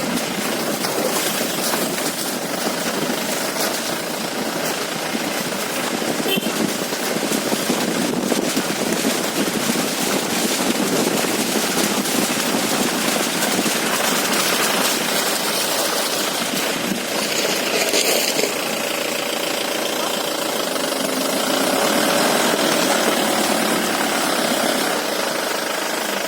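Safari jeep on the move, its engine running under a steady rushing noise, with a few sharp knocks.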